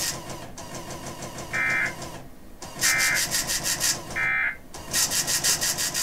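Three short bursts of EAS digital data tones, the SAME end-of-message code that closes the Required Monthly Test. Each burst is a fraction of a second long and they come about 1.3 s apart, over a hissy background with a fast, even high ticking.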